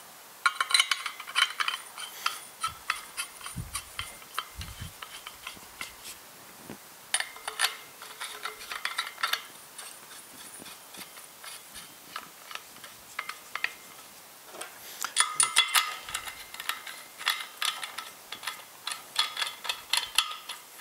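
Metal handle sections of a Gramfire folding shovel being screwed together: rapid clicking and rasping of metal threads, in three spells about half a second in, around seven to nine seconds, and from about fifteen to twenty seconds.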